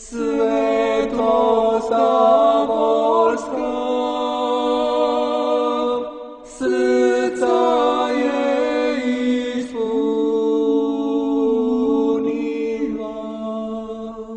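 Orthodox church chant sung without instruments: voices sing the melody over one low note that is held without a break, with a short pause in the melody about six seconds in.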